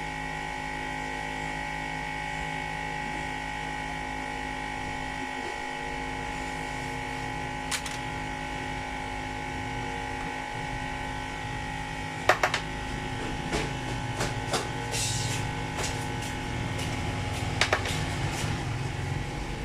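Steady electrical hum with several even tones, joined by a click about eight seconds in and a run of sharp clicks and taps from about twelve seconds on, as of small tools and parts being handled.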